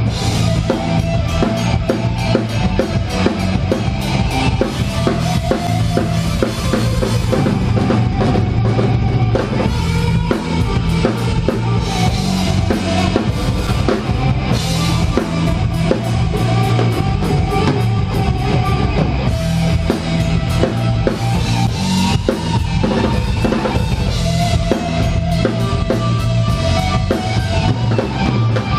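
Heavy metal band playing live, the drum kit loudest, with bass drum and snare hits driving on over electric guitars and bass.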